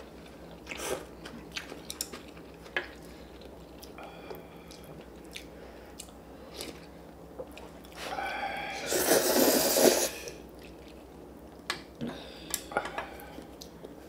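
Instant ramen noodles being slurped and chewed, with scattered small clicks of chopsticks and bowls. About eight seconds in comes one loud, long slurp of noodles, lasting around two seconds.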